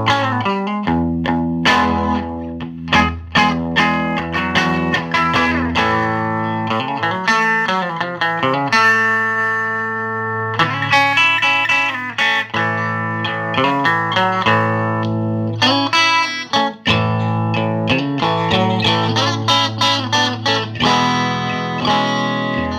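Fender Stratocaster played through a 1968 Fender Princeton tube amp with volume, treble and bass on 10 and the tremolo at minimum: loose noodling of single notes and chords, with one long held note about nine seconds in.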